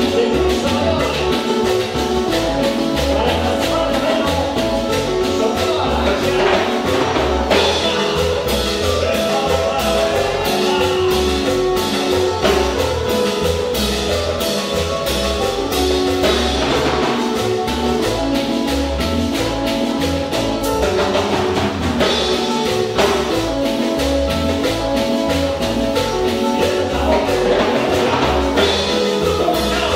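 A live band playing a song with drums, guitar and singing over a steady dance beat.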